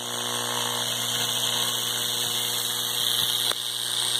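High-voltage arc from a microwave oven transformer burning into a potato at the alligator clip: a steady electrical buzz with mains hum under a loud hiss. A single sharp crackle comes about three and a half seconds in.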